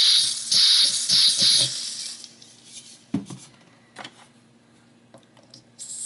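Butane hissing in about three short spurts as a refill can's nozzle is pressed into the filler valve of a tall Zaima butane lighter, then a quiet stretch with a couple of light clicks. A hiss starts again at the very end as the filler valve's pin is pressed to bleed trapped air out of the tank.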